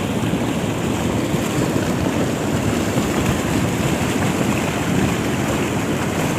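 Steady rushing noise of a lahar, a flow of water and volcanic debris, pouring down a river channel.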